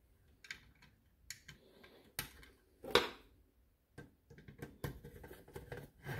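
Scattered light clicks and knocks of small parts and a plastic HEI distributor cap being handled on a workbench, the loudest knock about three seconds in. From about four seconds in, a quicker run of small ticks as a screwdriver drives small screws down into the plastic cap.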